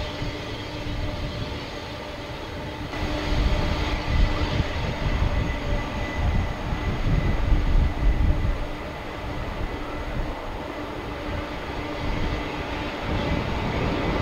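Kalitta Air Boeing 747-400F freighter's four turbofan engines running as it rolls along the runway after landing: a deep, uneven rumble with a steady hum of several tones above it, swelling a little louder a few seconds in.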